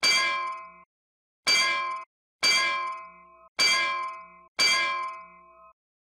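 A metallic bell-like clang sound effect, struck five times at uneven intervals, each stroke ringing for about half a second to a second before cutting off abruptly.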